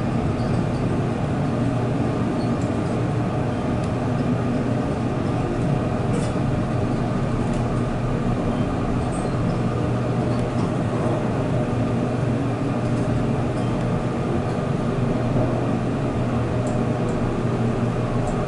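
Otis-modernized Montgomery hydraulic elevator travelling, heard from inside the cab: a steady low hum and drone from the running machinery that holds level throughout.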